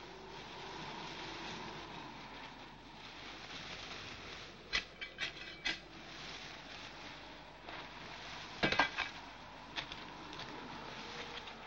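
Steady wind blowing over open ground, with a few short scrapes and knocks of a hand tool digging into dry earth, the loudest cluster about nine seconds in.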